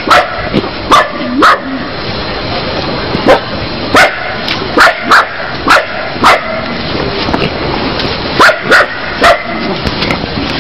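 A dog barking in short, sharp yelps, about a dozen in all, some in quick pairs, over a steady hiss.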